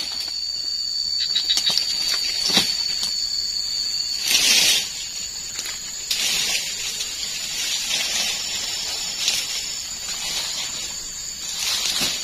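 Cut oil palm fronds rustling and scraping as they are dragged and piled, in irregular bursts with the loudest about four seconds in and a few sharp snaps. Behind it runs a steady high-pitched hiss.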